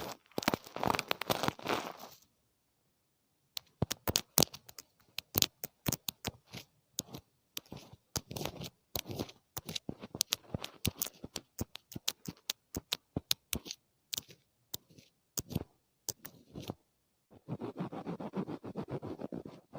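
ASMR ear-cleaning sounds close on the microphone: scratching and scraping. Dense rustly scratching comes first, then a long run of crisp, separate scratchy clicks, and dense scratching again near the end, with two short pauses between.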